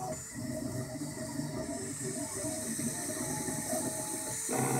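Ultimaker 2 3D printer printing: its stepper motors whine in short tones that jump in pitch as the print head moves, over the steady hiss of its cooling fans. A short louder buzz comes near the end.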